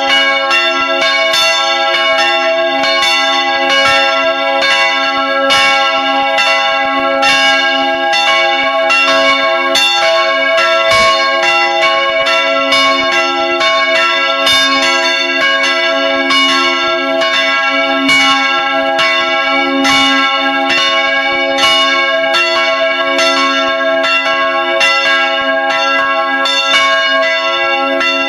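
Several church bells swinging and ringing together in a full peal, their clappers striking in an overlapping irregular pattern several times a second, loud and close in the bell chamber. The bells are swung by an electric motor through a wheel-and-belt drive on the yoke.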